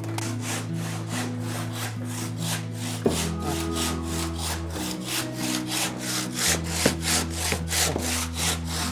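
Handsaw cutting through a stone wall, with quick, even back-and-forth rasping strokes, about three a second.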